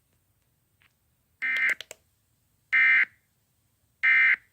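Emergency Alert System end-of-message data bursts: three short, shrill digital bursts a little over a second apart, signalling the end of the tornado warning broadcast.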